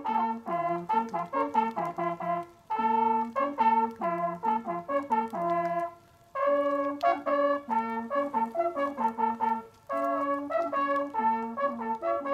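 Several brass hunting horns playing a fanfare together in short phrases with brief pauses between them, the kind of signal blown over the laid-out game at the end of a driven hunt.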